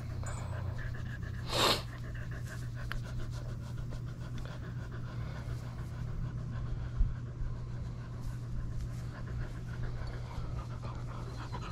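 Dog panting steadily, with one short breathy burst about two seconds in.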